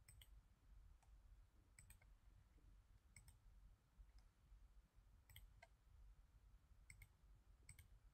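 Faint computer mouse clicks, about six spread irregularly, some as quick double clicks, over a very quiet low hum.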